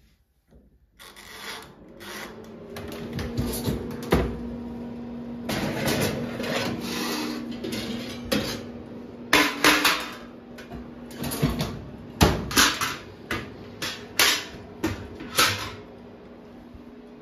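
Countertop mini oven's door being opened and a metal baking tray slid out and handled, with a run of clanks and knocks in the second half as tray and door are moved and the door is shut. A steady low hum runs underneath.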